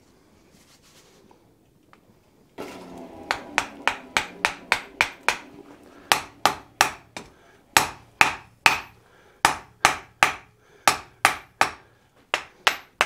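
Hand hammer striking a white-hot wrought iron hammer head on the anvil, about three blows a second in short runs with brief pauses, starting about three seconds in. This is a further welding pass to be sure of the forge weld, with sparks flying off the hot iron.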